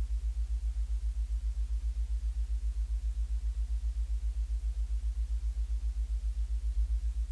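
A low, steady electronic hum that pulses rapidly and evenly, with a faint higher tone held above it.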